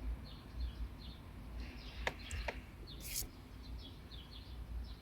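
Small birds chirping, a quick series of short, falling chirps repeating throughout. Two sharp clicks come about two seconds in, followed by a brief hiss, over a low rumble.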